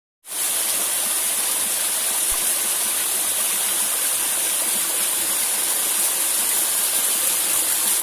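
Small jungle waterfall splashing down a rock face: a steady, hissing rush of falling water.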